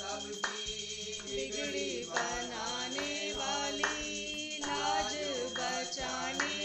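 Devotional aarti song with singing, accompanied by steady rhythmic handclaps keeping time.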